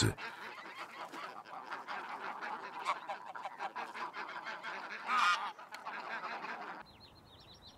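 A flock of greylag geese calling and honking on the water, many overlapping calls, one louder honk about five seconds in. About seven seconds in the calls stop abruptly and only a faint, high-pitched buzz remains.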